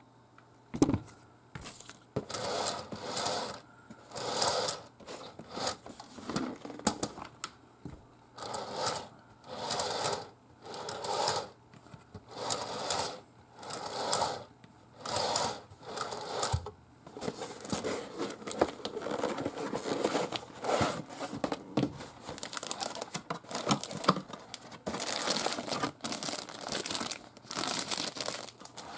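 Hands handling a plastic model kit's cardboard box, with short scraping, rustling strokes about once a second. In the second half it turns into continuous crinkling of the clear plastic bags that hold the kit's parts runners.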